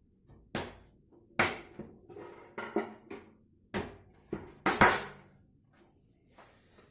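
A series of sharp knocks and clatters of hard objects being handled and set down on a table, the loudest about five seconds in.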